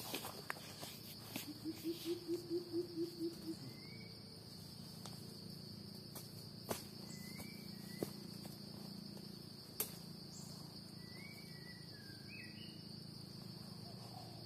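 A steady, high-pitched insect drone from crickets or cicadas, with short bird chirps now and then. About two seconds in comes a quick run of about nine low notes. A few sharp clicks come from the stick digging mushrooms out of the leaf litter.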